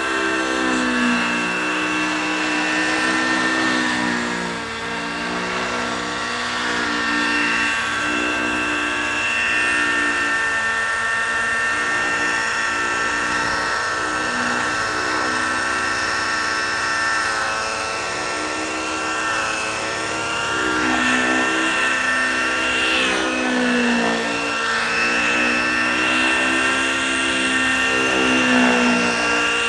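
Hirobo Freya 90 nitro model helicopter in flight: a continuous high-pitched engine and rotor whine whose pitch dips and recovers several times as the helicopter manoeuvres.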